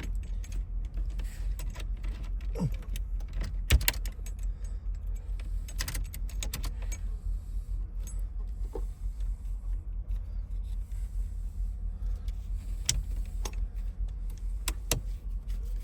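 Scattered metal clicks and clinks of small steering-column and ignition-lock parts and tools being handled during work on a 1993 GMC Yukon's ignition, the sharpest knock about four seconds in, over a steady low hum.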